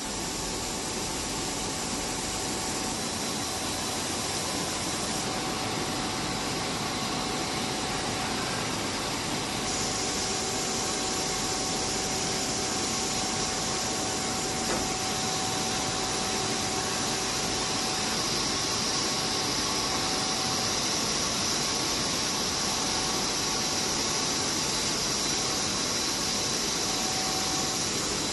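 Steady hum and hiss of running machinery on an enamelled flat copper wire production line, with a thin steady whine over it. The hiss grows stronger about ten seconds in.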